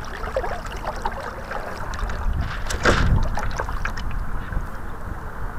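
Water splashing and rushing along the hull of a Santa Barbara class radio-controlled model sailboat under way, with wind buffeting the deck-mounted microphone. One louder splash comes about three seconds in.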